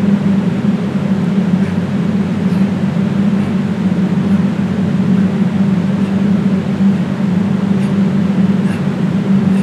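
A loud, steady machine hum with a low drone and a hiss above it, the constant background noise of the recording. Faint light ticks repeat a little under once a second.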